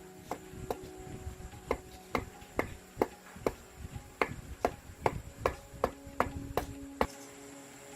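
Hammer striking repeatedly in a steady rhythm, about fifteen blows at two to three a second, each with a short ring, stopping about seven seconds in.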